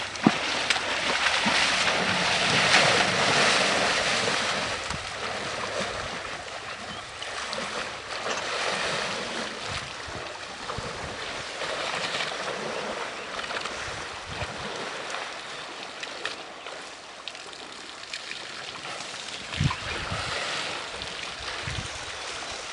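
Water splashing and sloshing as African elephants drink at a waterhole, loudest a few seconds in, with a few short low thumps near the end.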